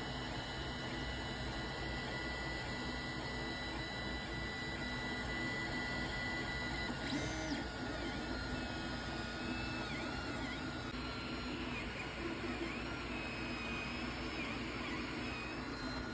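Creality Ender 3 3D printer running a print: its stepper motors whine, the pitch gliding up and down as the print head moves, over the steady hum of the hotend fan. The gliding whine grows busier about halfway through.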